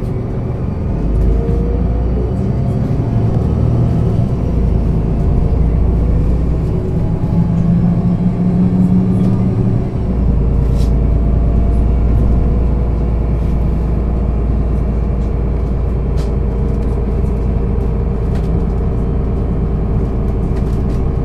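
Engine of a 2006 Solaris Urbino 12 city bus running, its note changing over the first ten seconds, then settling into a steady low drone about halfway through.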